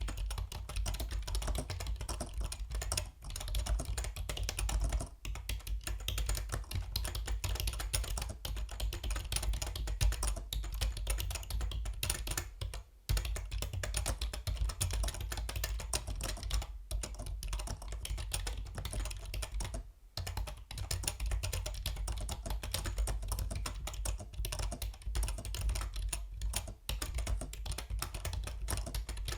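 Yunzii B307 mechanical keyboard being typed on fast and continuously, a dense run of key clicks broken by a few short pauses.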